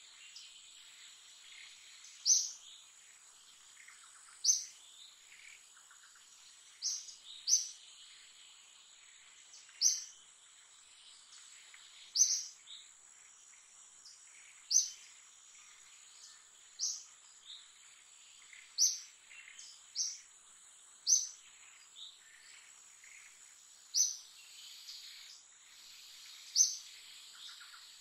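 A bird giving a short, sharp, high-pitched chirp over and over, about once every two seconds, over a steady high insect drone.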